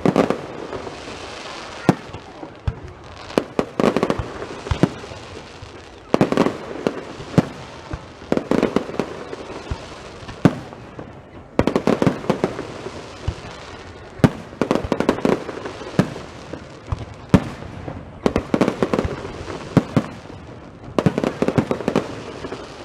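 Fireworks going off in quick succession: clusters of sharp cracks and bangs every second or two, with a few short lulls.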